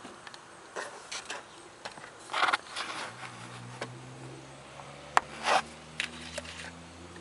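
Scattered rubs, scrapes and sharp clicks, like something being handled close to the microphone, with two louder rustling scrapes. A faint low steady hum comes in about three seconds in.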